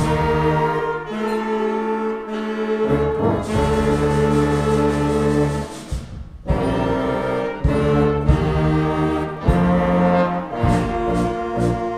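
Student concert band playing: flutes, saxophones, trombones and low brass sound sustained chords. There is a brief break about halfway, and evenly spaced short accented notes near the end.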